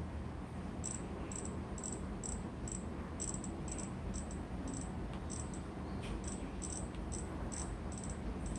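Faint, short, high-pitched ticks at an uneven two to three a second, typical of a smartphone camera's on-screen slider clicking through its steps as the white-balance setting is scrolled on an LG G6. Steady low room noise underneath.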